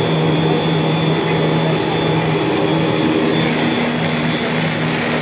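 Snack-food extruder and processing-line machinery running: a steady motor drone with a constant low hum and a faint high whine over it.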